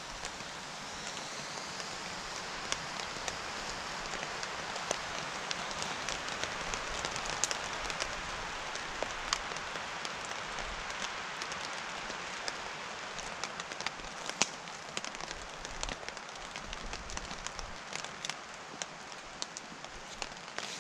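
Steak sizzling in a frying pan on a gas camping stove: a steady sizzle with frequent sharp spits and crackles of fat.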